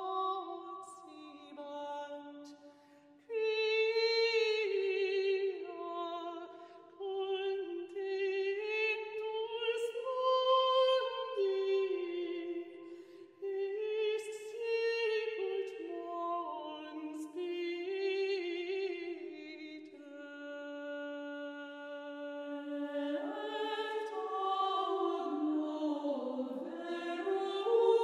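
Background music of slow choral singing, voices holding long notes that shift in pitch, with no drums or beat.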